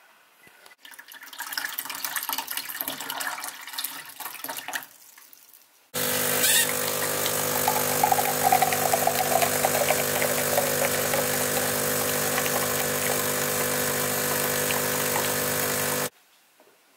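Saeco Incanto bean-to-cup espresso machine making a coffee: a few seconds of crackly grinding of the beans, then after a short pause its pump runs with a steady hum while the coffee pours, cutting off suddenly near the end.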